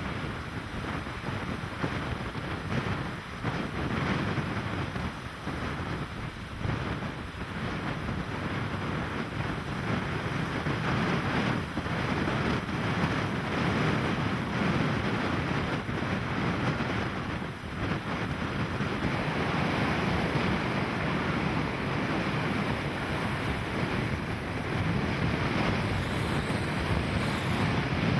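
Stormy sea: wind and breaking waves in a steady rushing noise, with wind buffeting the microphone. It grows a little louder about ten seconds in.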